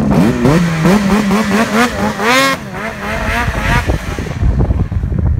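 Ski-Doo Summit 850 snowmobile's two-stroke twin-cylinder engine revving up and down hard as the sled pulls away, its pitch climbing highest a little past two seconds in. The engine fades out at about four seconds in, leaving wind on the microphone.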